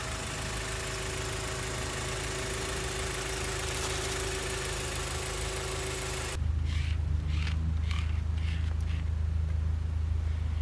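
Honda Prelude's H22A four-cylinder engine idling steadily while its freshly filled radiator bleeds air from the coolant. About six seconds in the sound changes abruptly to a steadier, deeper low hum.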